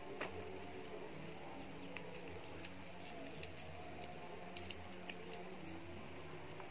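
Dry bean pods snapping now and then as they are shelled by hand, a few sharp clicks over a faint outdoor background in which a bird calls softly.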